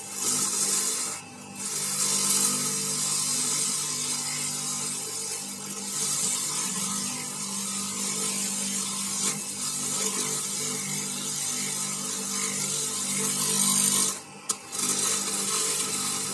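Homemade coconut husk shredder (cocopeat machine) running and shredding coconut husk: a loud rough rasping over a steady motor hum. The rasping breaks off briefly about a second in and again near the end.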